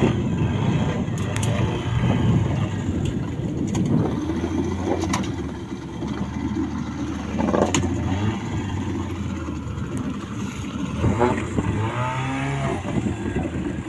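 Outboard motor of a small open wooden fishing boat running steadily under way: a low, even drone.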